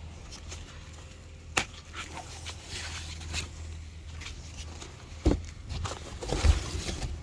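Foam and plastic packing being handled and pulled off a boxed bike: rustling and crinkling with three sharp knocks, the last near the end, over a steady low hum.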